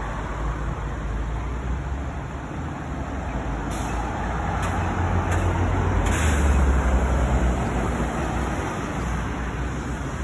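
Road traffic: a steady hum of passing vehicles. A heavy vehicle's low engine rumble swells to its loudest about six to seven seconds in. A few short hisses come in the middle.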